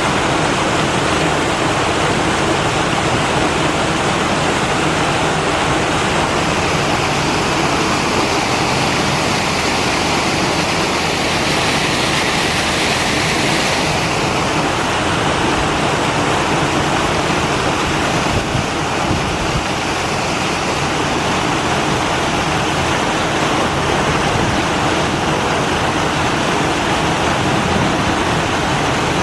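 Steady rush of running water in a polar bear enclosure's pool, with a brighter hiss for a few seconds around the middle.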